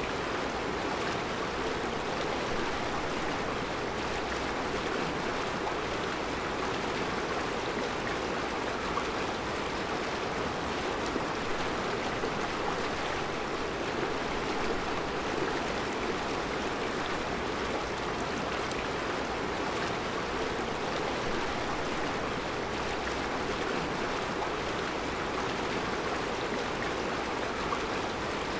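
Mountain river flowing over round rocks in a rocky riverbed: a steady, even rush of water.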